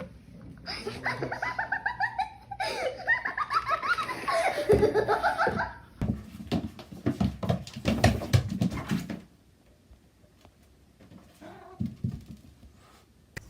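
People laughing hard in quick pulsing bursts for several seconds, followed by about three seconds of rapid knocking or clattering.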